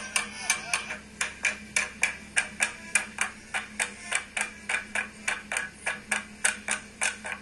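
A group clapping hands in a steady rhythm, about four sharp claps a second.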